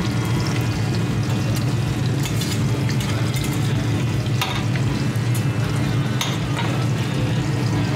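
White fish fillets sizzling in small frying pans, with a few sharp clicks of utensils against the pans and a steady low hum underneath.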